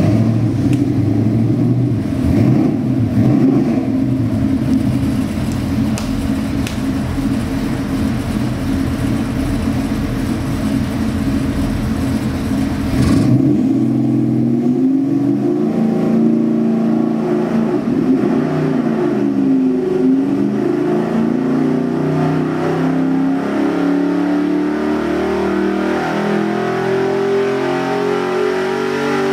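Ford 347 stroker small-block V8 crate engine running on an engine dyno. It runs low and steady for about the first 13 seconds, then makes a loaded dyno pull, its pitch climbing steadily as revs rise from about 2,500 to over 5,000 rpm.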